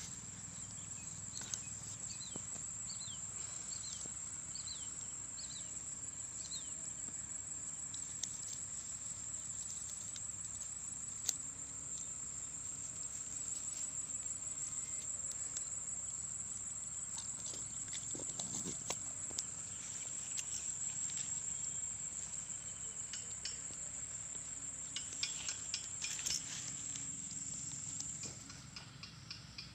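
Insects trilling in one steady high-pitched band that stops shortly before the end, with scattered light clicks and rustles and a few quick high chirps in the first several seconds.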